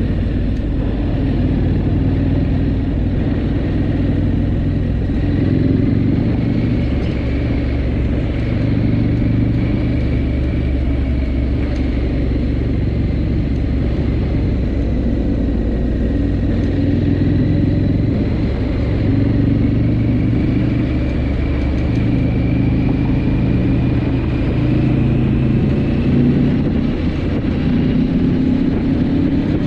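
Triumph Scrambler 900's parallel-twin engine running steadily at cruising speed, with a low rumble mixed with wind and road rush heard from the bike.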